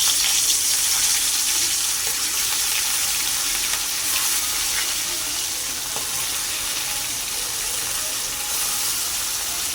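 Food frying in hot oil in a pan, a loud, steady sizzle with fine crackling, starting abruptly.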